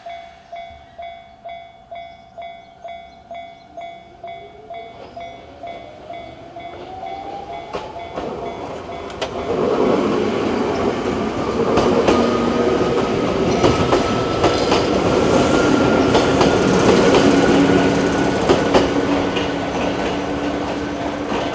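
Japanese level-crossing alarm ringing its electronic JR-standard tone, about two strokes a second, while a whine from the approaching electric train rises steadily in pitch. About ten seconds in the train reaches the crossing and passes loudly, its wheels clattering over the rail joints and covering the alarm.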